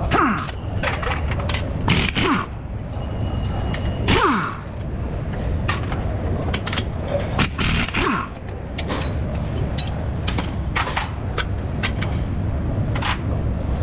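Impact wrench fired in four short bursts, each ending in a falling whine as the motor spins down, between scattered clicks and clanks of tools on metal.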